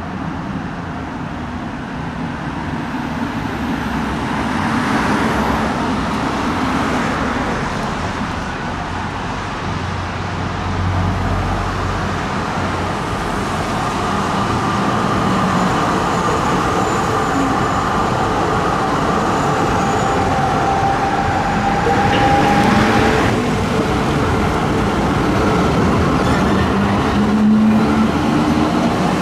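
A Zürich Tram 2000 (Be 4/6) tram rolls up and passes close by on street track, with a rolling rumble that grows louder. A steady high whine rises above it about halfway through. Road traffic runs underneath, including a car passing early on.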